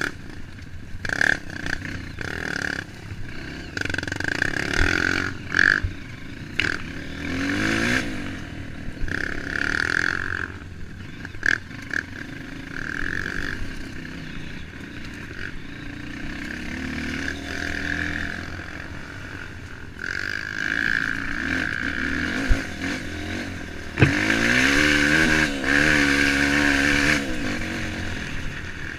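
Trail motorcycle engine revving up and down repeatedly as it rides over rough ground, with scattered knocks and rattles; the longest, loudest rev comes near the end.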